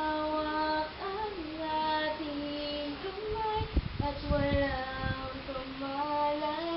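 A young female voice singing a slow melody with long held notes that slide between pitches. A few low thuds come about halfway through.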